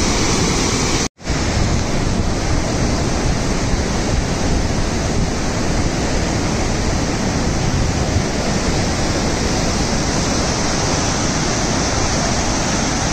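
Muddy floodwater of a swollen river rushing and churning in a loud, steady torrent, with a brief break about a second in.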